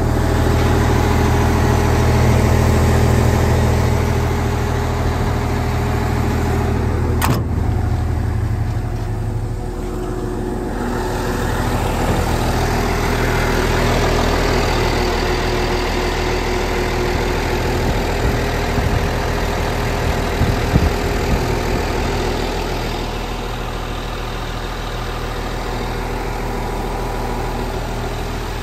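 Hyundai R360LC-7A excavator's turbodiesel engine idling steadily, heavier in the low end for the first ten seconds or so. A single sharp click about seven seconds in.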